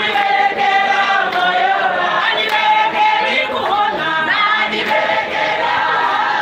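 A church congregation singing together in chorus, many voices blending at a steady level.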